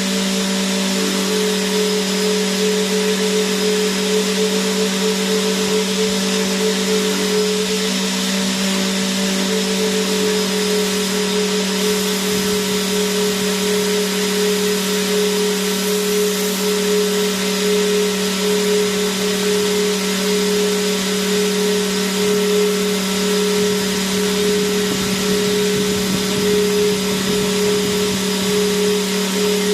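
Vacuum cleaner motor running steadily: an unchanging hiss of rushing air over a constant low hum and a higher whine.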